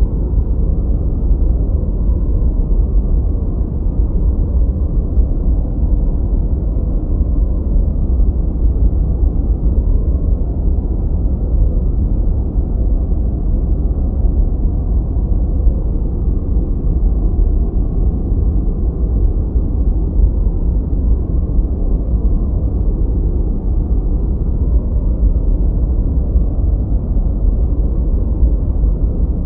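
Continuous 'gentle white noise' sleep track: a steady, unchanging hiss, deep and muffled, with most of its weight in the low rumble and no high hiss at all.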